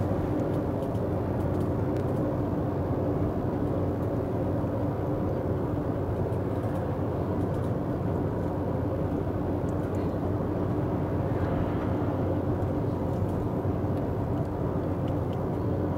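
Steady road and engine noise inside a moving vehicle's cabin at highway speed: an even drone with tyre hiss. An oncoming truck towing a trailer passes with a brief swell about eleven seconds in.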